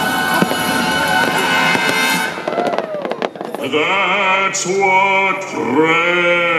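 Fireworks show soundtrack music playing over loudspeakers, with a few sharp firework bangs a little before halfway. Then a voice sings held, wavering notes over the music.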